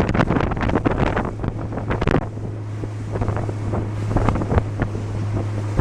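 Fishing boat's motor running on the river, a steady low hum, with the hull slapping on waves and wind buffeting the microphone. The wind and slapping are heavy at first and ease about two seconds in.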